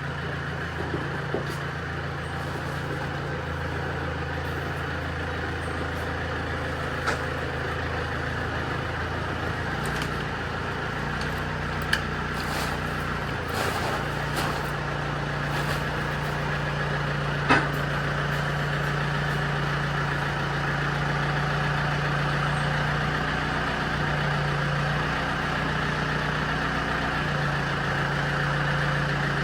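Engine running steadily at idle, its low hum stepping slightly in pitch a few times, with a few light knocks.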